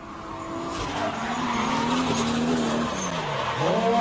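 Drift cars sliding in tandem, engines revving hard over the skid noise of their tyres, growing louder over the first two seconds. Near the end the engine note drops sharply, then climbs again.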